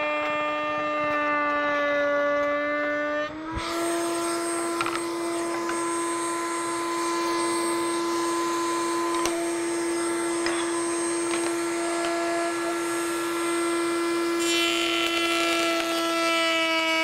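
Table-mounted router with a tongue-cutting bit running at full speed, a steady high whine with a few light knocks from wood on the table. Its pitch sits a little lower while a board is fed through the cut at the start, rises slightly about three and a half seconds in as the load comes off, and sags again near the end as the next board goes through.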